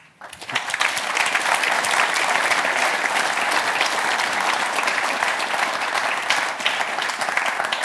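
An audience clapping, building up within the first second and then holding steady as a dense patter of many hands.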